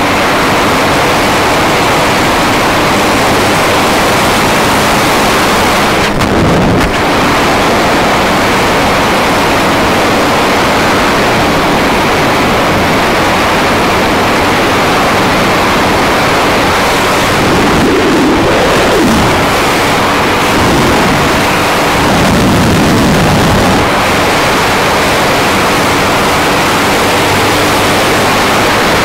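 Wind rushing over the microphone of a motorcycle at road speed, with the Honda CBR250R's single-cylinder engine running steadily underneath. The engine note shifts in pitch for a few seconds about two-thirds of the way through.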